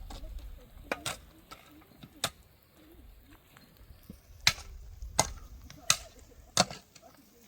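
A series of sharp knocks, as of chopping or hammering. Four strong strokes come near the end in a steady rhythm, a little under a second apart.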